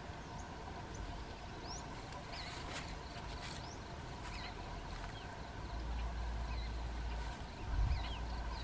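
Small birds chirping in short rising calls over a steady faint hum, with a low wind rumble on the microphone in the second half and a dull thump near the end.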